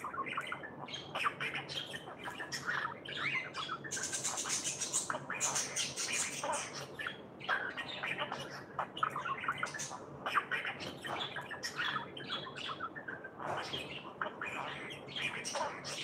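Small parrot chattering in a rapid run of short chirps and squawks, with a noisy burst lasting about a second about four seconds in.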